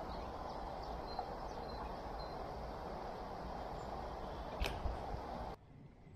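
Outdoor ambience: a steady low rush of background noise with a few short, high bird chirps, and a single sharp click about four and a half seconds in. The rush cuts off suddenly near the end, leaving a much quieter background.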